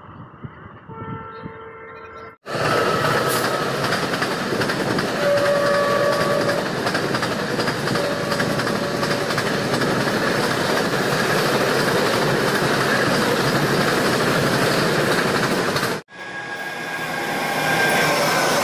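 Indian Railways express trains running past at speed, in separate clips that break off abruptly: first a train horn sounding as a train approaches, then from about two seconds in a loud steady rush of wheels on rail with two horn blasts, and after a short dropout near the end a WAP-7 electric locomotive hauling another train past.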